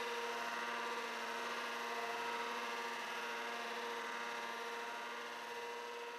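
A dense, steady drone of many layered sustained tones, fading slowly toward the end.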